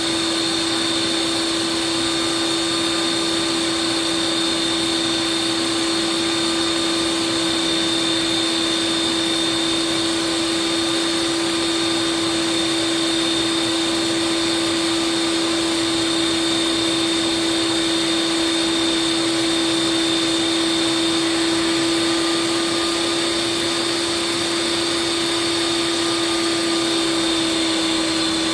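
Ninja Creami ice cream maker running its Lite Ice Cream program, its blade spinning down through a frozen pint: a steady, unchanging motor whine with a constant high tone.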